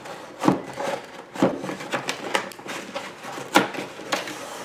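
A diffuser being unpacked from its molded paper-pulp packaging insert: scraping and rustling, with a handful of irregular knocks as the pieces are pulled apart.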